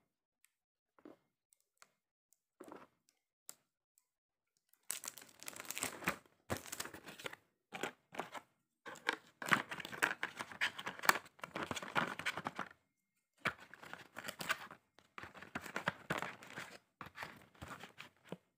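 Plastic packaging crinkling and tearing by hand in repeated bursts, starting about five seconds in after a few faint clicks.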